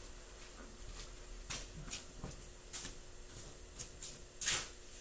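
A few faint, scattered clicks and knocks over a low steady hum, the loudest about four and a half seconds in.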